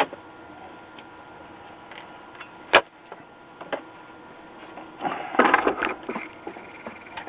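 Handling noises at a workbench as a circuit board is set down and a soldering iron picked up: a single sharp knock a little under three seconds in, then about a second of rustling and clatter, over a faint steady hum.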